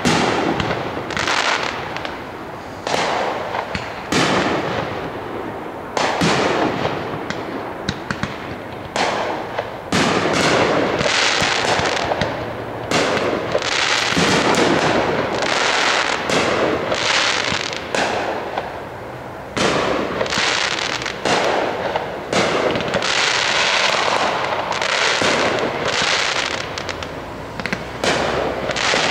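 Aerial firework shells bursting in quick succession: a near-continuous barrage of sharp bangs, each trailing off in a ringing tail.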